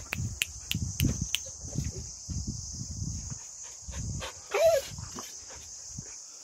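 A Samoyed gives one short bark about four and a half seconds in, the loudest sound here. Under it run footsteps on concrete steps, a few sharp clicks in the first second and a half, and a steady high insect buzz.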